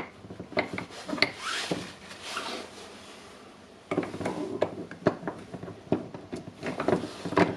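Small clicks, knocks and rubbing of metal hammer-drill parts being handled and greased by hand, with a brief scraping rub a second or two in.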